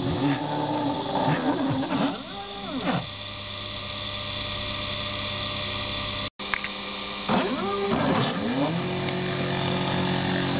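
Proxxon BFW 40/E milling motor running at a steady pitch while the CNC's stepper motors whine in rising and falling sweeps as the bit engraves into wood. The sound drops out for a moment a little past halfway, then more stepper sweeps follow and the steady motor tone shifts to a new pitch.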